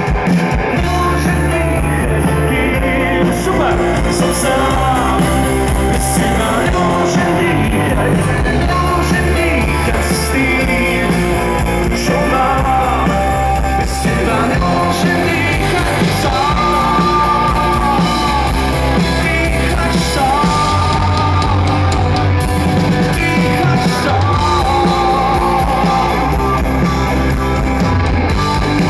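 Live rock band playing an instrumental stretch of the song, with a lead line of long, bending notes over electric guitars, bass and drums through a loud PA.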